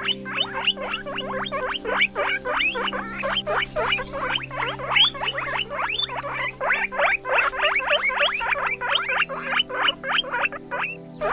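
Guinea pig squeaking: a fast, unbroken run of short upward-sweeping squeaks, about four a second.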